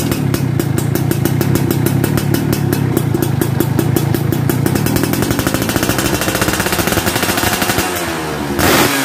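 Yamaha F1ZR 110cc single-cylinder two-stroke engine idling through an AHM aftermarket exhaust, with a steady, rapid popping beat. Near the end a quick blip of the throttle raises it louder, and the revs then drop away.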